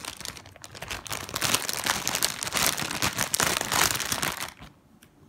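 Packaging of a squishy toy crinkling and rustling as it is unwrapped by hand, in quick irregular crackles that stop about four and a half seconds in.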